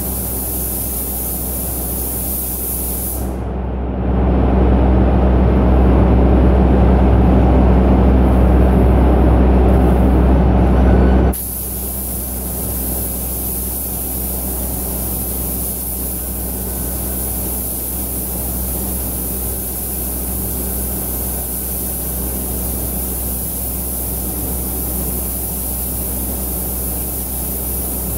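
Steady air rush of a paint spray booth's ventilation with the hiss of a compressed-air spray gun spraying paint. From about four seconds in a louder low rumble takes over for several seconds, then cuts off suddenly.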